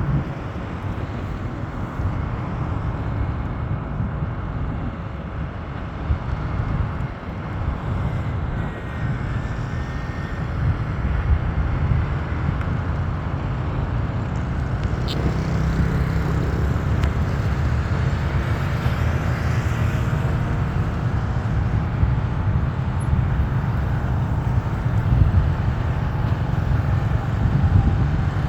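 Airbus A320 jet engines during takeoff: a steady low rumble that grows slightly louder.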